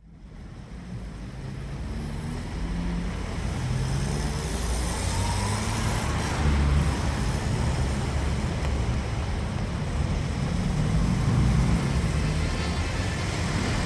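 City road traffic: a dense rumble of passing cars and engines, fading in from silence over the first couple of seconds and then holding steady.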